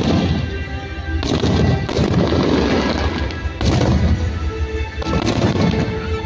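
Aerial fireworks shells bursting and crackling overhead, with sharp bursts about a second in, past halfway, and near the end, each trailing off in a crackling wash. Music plays under them throughout.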